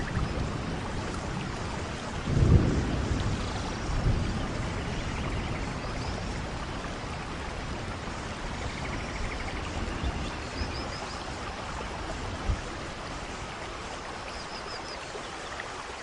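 Steady rushing noise, like rain or running water, with low rumbles about two and four seconds in. Faint short bird chirps come twice in the second half.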